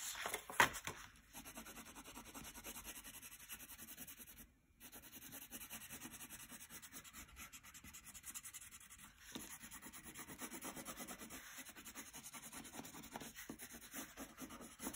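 Brown wax crayon rubbed quickly back and forth on paper, a faint steady scratching as a branch is coloured in. A couple of louder knocks come just under a second in.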